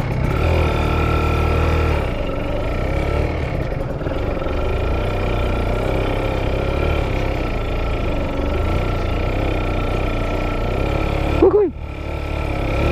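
Kawasaki Ninja RR 150's two-stroke single-cylinder engine running at low speed under load as the bike is ridden through soft beach sand. The revs rise and fall with the throttle, and the sound drops away briefly near the end.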